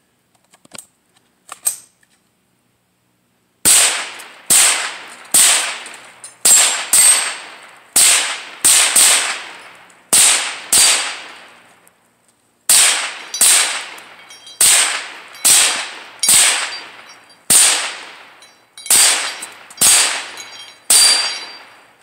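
About two dozen single shots from a semi-automatic firearm, fired at an uneven pace of roughly one to two a second, starting about three and a half seconds in.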